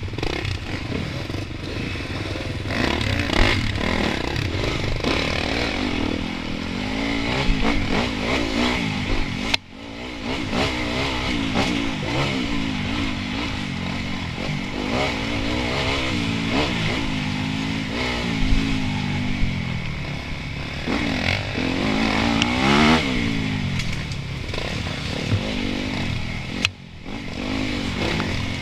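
Dirt bike engine heard from on board, revving up and down constantly with the throttle on a tight, bumpy enduro trail. The sound drops off sharply for a moment twice, about ten seconds in and near the end.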